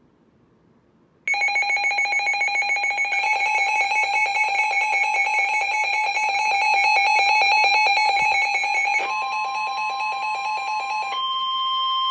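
Emergency Alert System attention signal: a loud, steady electronic alert tone with a fast flutter, starting about a second in, that changes to a single plain tone near the end. It announces that an emergency alert message follows.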